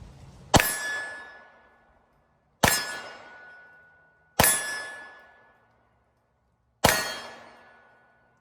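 Four shots from a Polymer80 Glock 19-style 9mm pistol, fired at uneven intervals about two seconds apart, each a sharp crack trailing off in a ringing tail.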